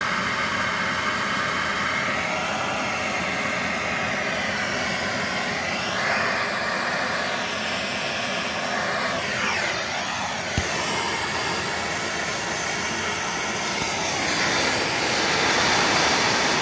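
Handheld gas torch flame burning with a loud, steady rushing hiss, and a single sharp click about ten and a half seconds in.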